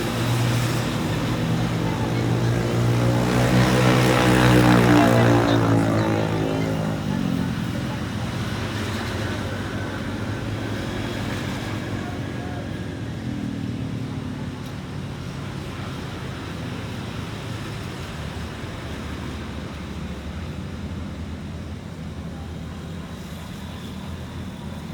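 A road vehicle passes close by: engine and tyre noise build to their loudest about four seconds in, then fade away over the next few seconds, leaving steady traffic noise.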